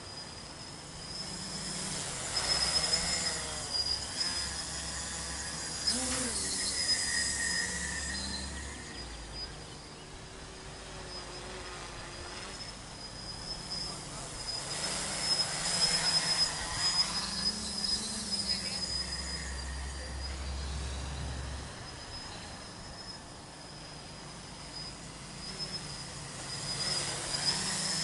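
Tricopter with three 2216 900 kV brushless motors and 8x4.5 carbon-fibre props in flight, its motor and propeller whine rising and falling in pitch and loudness with throttle and distance. It swells loudest about 2 to 8 seconds in and again around 15 to 18 seconds.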